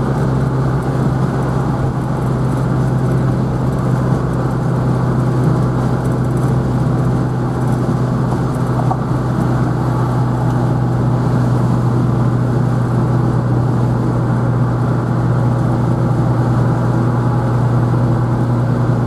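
A 1953 Opel Olympia Rekord's 40-horsepower four-cylinder engine and drivetrain, heard from inside the cabin, running steadily at full throttle up a hill at about 95 km/h. The transmission holds its gear under the load without jumping out.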